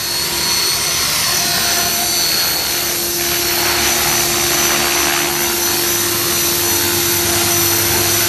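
Align T-Rex 500 radio-controlled helicopter hovering close by: a steady rush of the spinning rotor blades with a high, even whine from its drivetrain.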